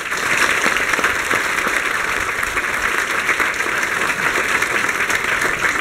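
Audience applauding: a steady round of many hands clapping that dies away near the end.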